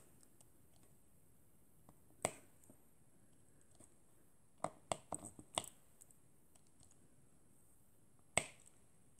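Diamond painting drill pen tapping drills onto the sticky canvas: sharp, isolated clicks, one about two seconds in, a quick run of about five near the middle, and another near the end.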